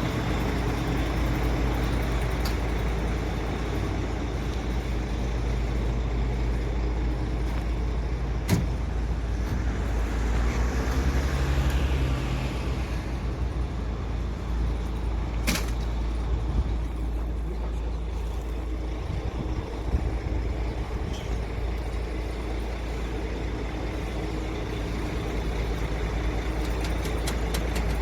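Heavy vehicle engine running steadily, with two sharp knocks, one about eight seconds in and another about fifteen seconds in, and a brief hiss between them.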